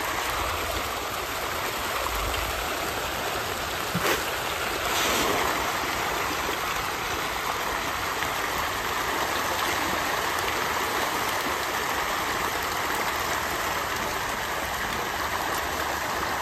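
A dense shoal of pond fish thrashing at the surface in a feeding frenzy, a continuous churning splash. A short sharp click about four seconds in.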